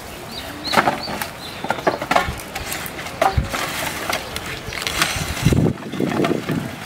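Wooden planks and logs knocking and clattering as they are levered and dragged off a woodpile with a bamboo pole, a string of separate sharp knocks.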